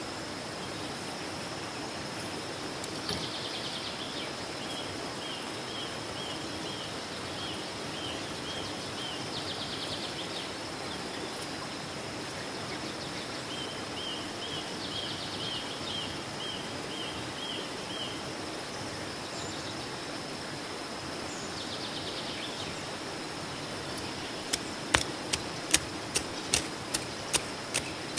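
Small hand hoe chopping into loose garden soil near the end, a string of sharp strikes about two a second. Before it, a steady outdoor hiss with several runs of short, high chirps.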